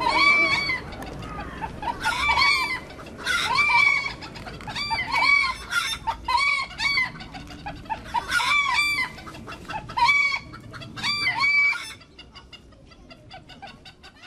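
Gulls calling: bouts of loud, repeated arched cries, one bout every second or so, turning fainter near the end.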